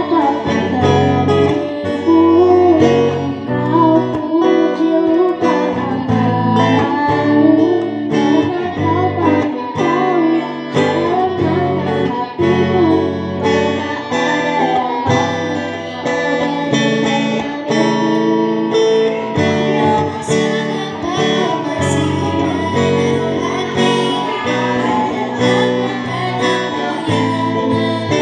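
Acoustic-guitar song arrangement: strummed acoustic guitar with a wavering melody line over it, most marked in the first half.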